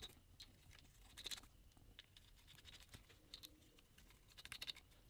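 Near silence with a few faint metallic clicks and scrapes of nuts being threaded by hand onto the cylinder-head studs of a Kawasaki KX100 two-stroke, one about a second in and a small cluster near the end.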